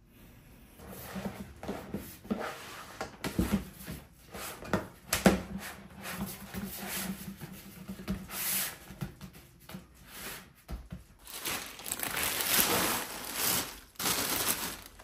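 Hands handling and rubbing material on a workbench: irregular rustling and scraping, with a few sharp knocks, the loudest about five seconds in.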